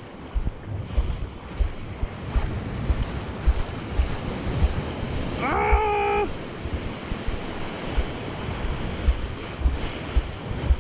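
Surf washing and breaking onto the beach, with wind buffeting the microphone in frequent low thumps. A brief pitched note sounds about halfway through.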